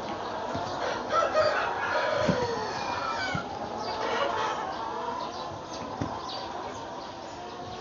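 A large flock of chickens clucking and calling over one another, with a rooster crowing among them; busiest in the first few seconds, with a couple of dull thumps.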